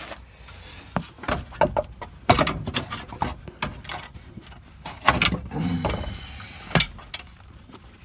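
Metal clanks, knocks and rattles as a stock front strut assembly is worked loose and pulled out of the wheel well, with sharper knocks about 1, 2.5, 5 and 7 seconds in.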